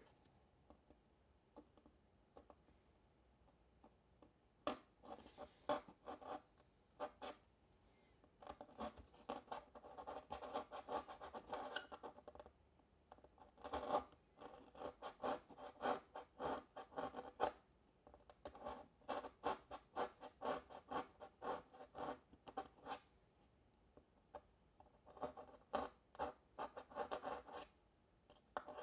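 Hobby knife cutting a slot through paper-faced foam board: quiet for the first few seconds, then many short scratchy strokes in bursts with brief pauses.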